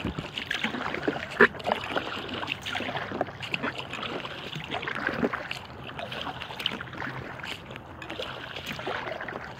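Water splashing and dripping around an inflatable kayak as it is paddled, with many small irregular taps and knocks and one sharper knock about a second and a half in.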